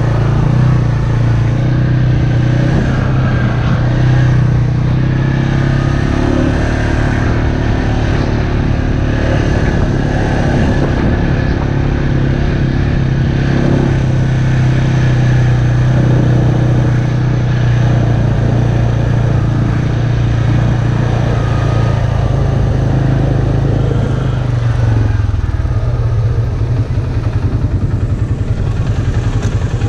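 Textron Alterra 500 ATV engine running at a steady pace while riding, then easing off about 25 seconds in and settling to a pulsing idle as the quad stops.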